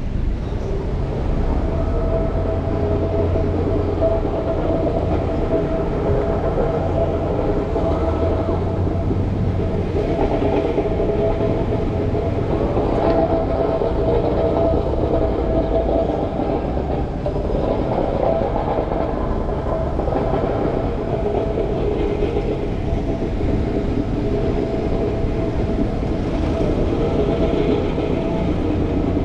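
A train running, heard as a steady rumble with a held humming tone.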